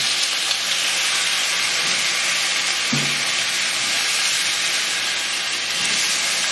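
Fish fillet frying in olive oil in a pan over high heat: a steady sizzle, with a light knock about three seconds in.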